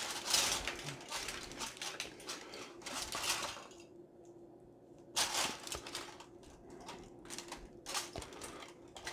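Aluminium foil crinkling and rustling while a rotisserie spit fork is handled over it, with light metal clicks and scrapes as the fork slides along the spit.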